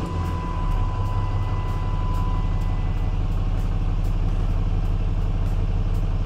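Dodge Ram 3500's 6.7-litre Cummins inline-six turbodiesel idling steadily just after starting, running on a newly fitted crankshaft position sensor. A thin steady high tone sounds over it and stops about two and a half seconds in.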